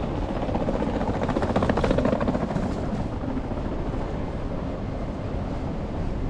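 A vehicle passing, swelling and fading about two seconds in, over steady street noise.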